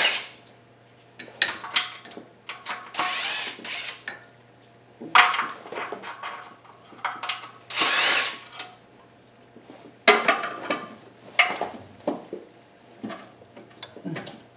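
Several short bursts of a handheld power tool, each about half a second to a second long, with knocks and clicks of tools and metal parts between them.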